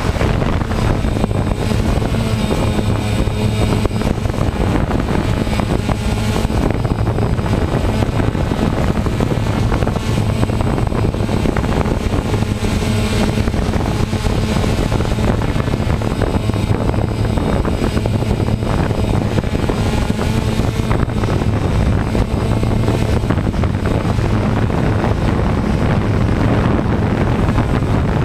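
DJI Phantom quadcopter drone in flight, its motors and propellers giving a steady, loud buzz with a low hum, mixed with some wind noise.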